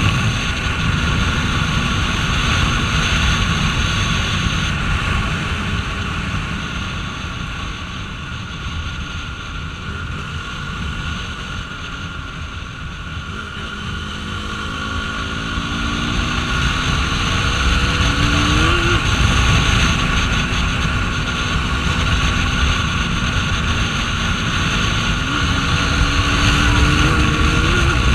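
KTM RC 390's single-cylinder engine under way on the road, buried in heavy wind rush on the microphone; it eases off in the middle, then pulls harder, its pitch climbing through the gears and dropping at an upshift about two-thirds through and again near the end.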